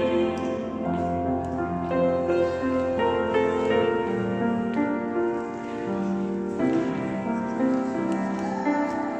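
Music: a church choir's hymn with digital piano accompaniment, in held notes that move step by step.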